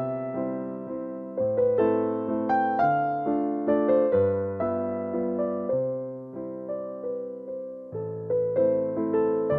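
Background music: a gentle piano melody of struck, fading notes over lower held notes.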